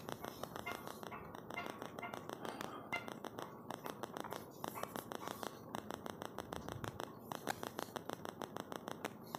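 Charcoal stick scratching across drawing paper in quick, short strokes, a dense run of faint scratchy ticks as loose sketch lines are laid in.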